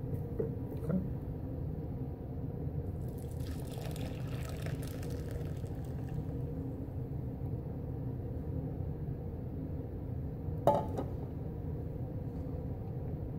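Hot curdled milk and whey poured from a stainless steel saucepan into a cloth-lined strainer, a splashing pour lasting a few seconds in the first half, over a steady low background hum. A single sharp knock comes about three-quarters of the way through.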